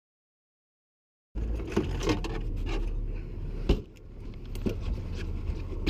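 About a second of dead silence, then a boat's engine running with a steady low rumble, with scattered clicks and knocks from handling on deck and one sharper knock about halfway through.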